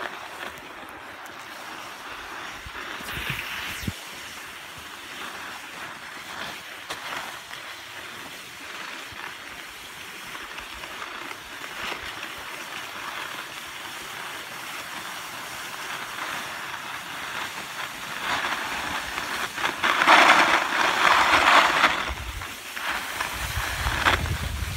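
Skis sliding over packed snow: a steady scraping hiss that grows loudest and roughest for about two seconds some twenty seconds in, as the edges bite harder.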